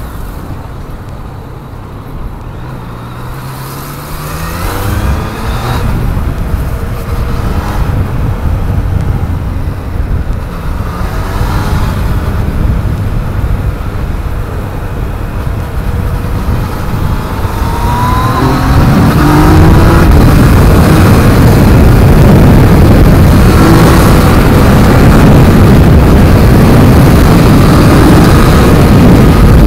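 Yamaha MT-09's three-cylinder engine accelerating through the gears in several rising climbs of revs. For the last third it turns into a loud, steady rush at speed.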